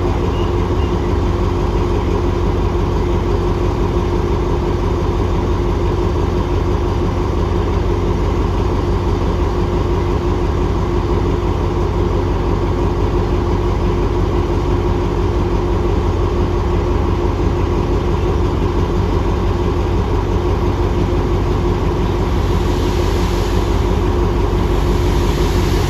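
Alsthom diesel-electric locomotive idling close by, a steady engine drone with a constant hum and a couple of held tones. Near the end a hissing rush grows as a second locomotive-hauled train pulls in alongside.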